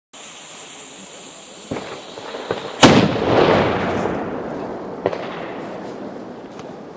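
A 40 mm thundermug loaded with 120 g of Pyrodex P and topped with flour goes off with one very loud boom about three seconds in, its rumble slowly fading. Before the boom there is a steady hiss from the burning fuse, with a few small pops. A single sharp knock follows about two seconds after the blast.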